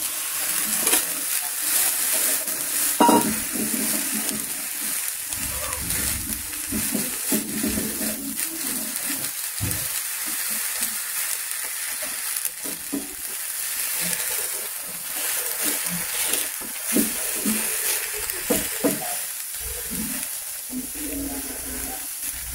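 Beaten egg mixed with chopped mơ lông leaves frying on a banana leaf laid in a hot pan without fat, a steady sizzle, with a spoon scraping and stirring as it spreads the mixture out.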